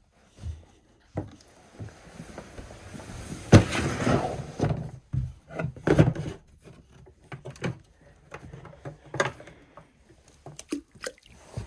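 Fishing gear being handled and set down: irregular knocks, thumps and rustling, with the sharpest knock about three and a half seconds in.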